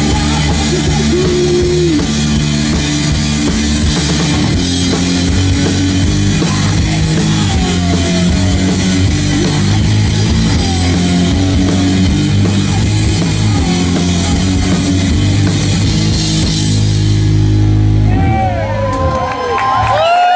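Live rock band playing loud: a pounding drum kit with crashing cymbals over sustained electric guitar. The cymbals drop out near the end as the song winds down, and crowd whoops and cheers start to come through.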